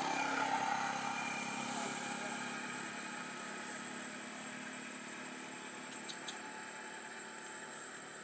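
A motor engine running steadily, loudest at the start and slowly fading, with two faint clicks about six seconds in.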